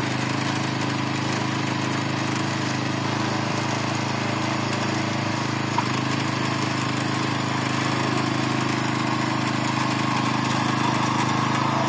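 Small petrol engine of a garden tiller running steadily under load as it works through firm, compacted soil.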